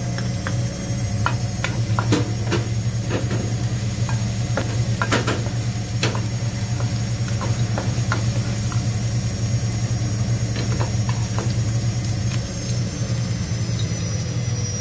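Steady low motor hum of a washing machine running, with a spatula scraping and tapping in a non-stick pan as garlic and vegetables are stirred in oil.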